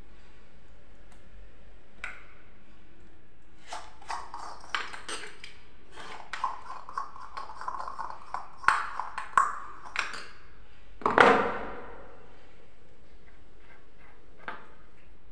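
Metal shower-mixer fittings and chrome wall flanges being handled: scattered clicks and clinks with a ringing ping, bunched in the middle and loudest about two-thirds of the way through.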